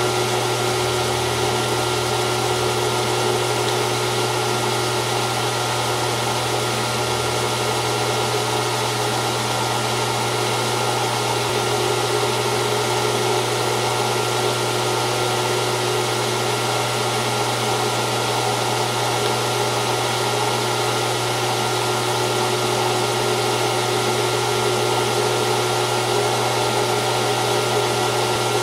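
Gear-head metal lathe running steadily at its lowest speed setting, 70 rpm on the dial: an even hum of motor and headstock gears.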